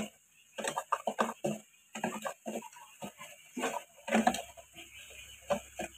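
Irregular light clicks and knocks of a spoon against a frying pan and seasoning containers, as sugar is added to a pan of simmering tomato sauce.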